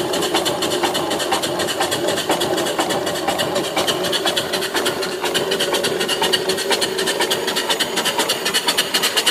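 Live steam mill engine with a 3-inch bore and 4-inch stroke running on steam. Its exhaust chuffs in a fast, even rhythm over a steady hiss.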